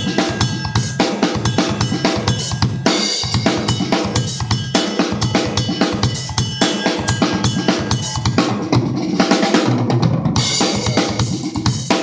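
A PDP acoustic drum kit played with sticks in a busy groove: bass drum, snare and cymbals struck densely over a constant cymbal wash. About nine seconds in the cymbals drop back for a moment under heavier low drum hits, then come back in.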